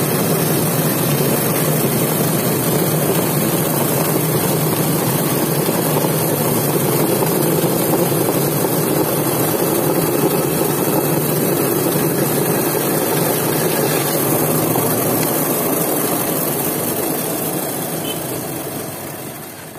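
Electric power-tool motor running steadily, then fading out over the last few seconds.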